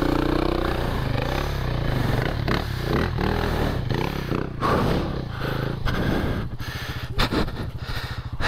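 Big single-cylinder dirt bike engine pulling under load as the bike is ridden into and up a rut, with knocks and scrapes from the bike. About six seconds in, the engine note drops to slow, even firing pulses, and there is a sharp knock soon after.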